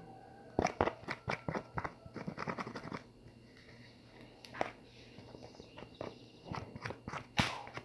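Glue slime with Tenys Pé foot powder being stirred hard in a container: a quick run of sticky clicks and squelches for a couple of seconds, then scattered ones, with one sharper sound near the end.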